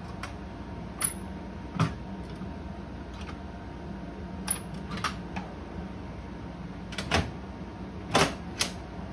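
Sharp metallic clicks and knocks from the IGT SAVP Top Dollar slot machine's cabinet door and latch as the main door is handled and opened, about seven in all, the loudest near the end. A steady low hum runs underneath.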